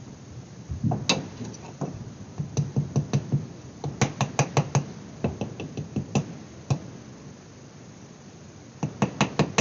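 Paddle tapping the walls of a hollow, leather-hard clay birdhouse, in quick runs of sharp taps about five a second with short pauses between, a quiet stretch near the end before the taps start again. The air trapped inside the closed form backs the walls up against the paddle.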